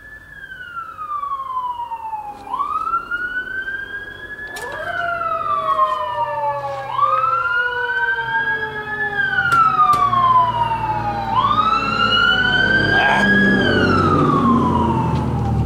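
Emergency vehicle sirens wailing, two overlapping, each repeatedly rising quickly in pitch and falling slowly about every two seconds. A low rumble builds in the second half, and there are a few sharp knocks.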